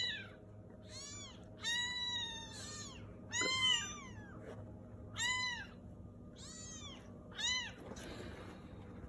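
Kittens mewing repeatedly: about eight short, high-pitched mews, each rising and falling, with one longer mew about two seconds in.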